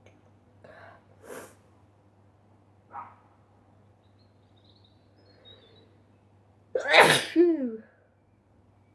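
A person sneezes once, loudly, about seven seconds in, after a few short, sharp breaths leading up to it; the sneeze ends in a voiced cry that falls in pitch. The sneeze is set off by a dust allergy.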